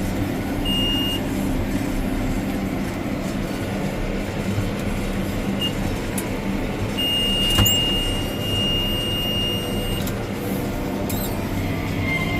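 Tractor running steadily while baling, with a thin high whine that comes in briefly near the start and again for about three seconds later on, and one sharp click just before the end of that whine.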